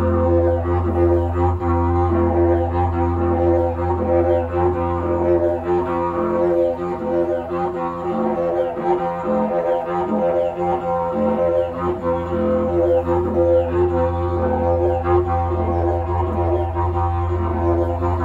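Mago, a short didgeridoo, played continuously: a steady low drone with strong overtones, overlaid with a quick repeating rhythmic pattern of changing tones, played improvised.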